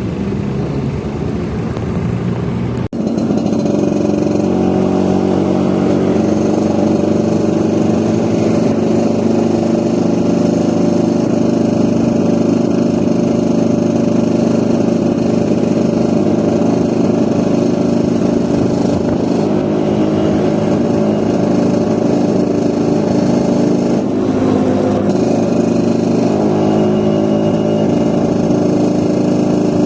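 A Vespa scooter's engine running under way, its pitch rising and falling in steps with the throttle. There is an abrupt change in the sound about three seconds in.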